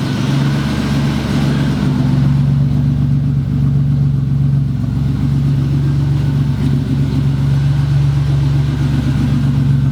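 Buick Grand National's turbocharged V6 idling steadily through a newly installed Pypes exhaust, with a deeper little rumble. The new system is still burning off fumes and oils from the install.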